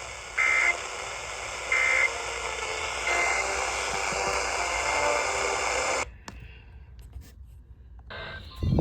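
Three short EAS/SAME end-of-message data bursts from a NOAA Weather Radio broadcast, the digital tones that close an alert, about a second and a quarter apart over steady radio static. The static cuts off about six seconds in, and a loud low thump comes at the very end.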